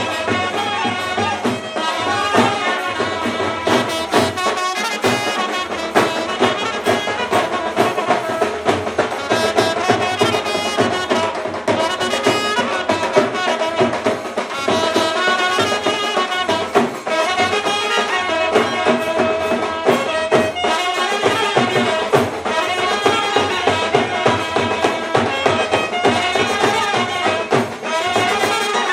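Himachali brass band playing a lively folk dance tune, horns carrying the melody over steady stick-beaten drums.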